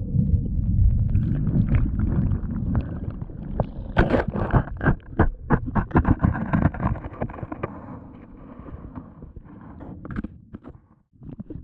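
Muffled churning and rumbling of breaking surf heard through a head-mounted camera tumbling in the water after a kayak wipeout, with a run of sharp knocks and clatters. The churning dies down over the last few seconds.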